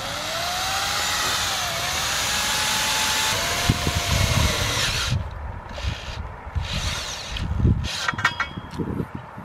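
Cordless power drill running under load, its motor whine dipping and rising in pitch, then stopping about five seconds in. Several short bursts and clicks follow.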